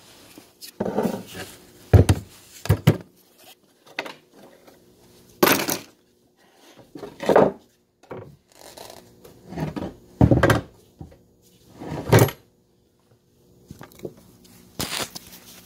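Handling noise: a series of separate knocks and rustles with short quiet gaps, as the phone and the work in front of it are handled and moved.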